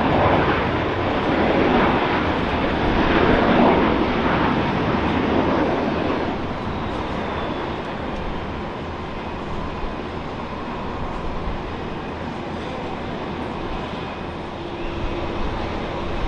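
Jet airliner engines making a broad rushing noise. It is loudest in the first six seconds, then falls to a lower, steady noise.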